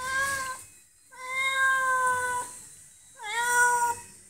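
Domestic tabby cat meowing three times: drawn-out, fairly level-pitched meows, the middle one the longest and the last sliding up at its start.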